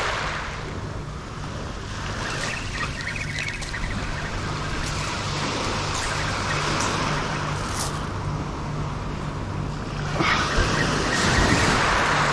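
Small waves washing in over a shingle beach, the surf noise swelling again about ten seconds in. A steady low hum runs underneath.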